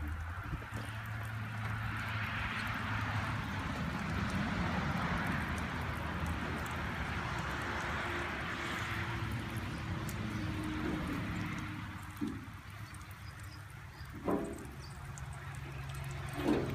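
Bulldozer engine running steadily with a low hum, with a few short knocks near the end.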